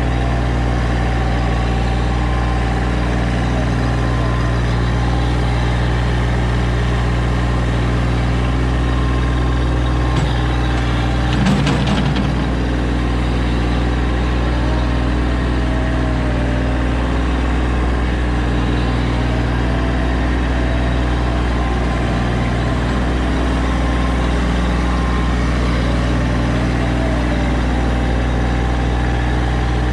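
A small engine running steadily, a low unbroken hum, with a brief knock about eleven seconds in.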